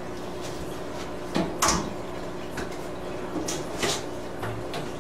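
Handling noises: a few short, sharp clacks and light rattles, the loudest pair about a second and a half in, as a polycarbonate lid sheet is picked up and moved, over a steady low hum.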